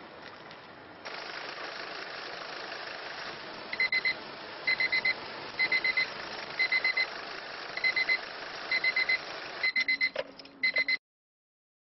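Electronic alarm beeping in short high-pitched groups of two to four beeps, about one group a second, over steady background noise. The beeps turn more rapid near the end, and everything then cuts off suddenly.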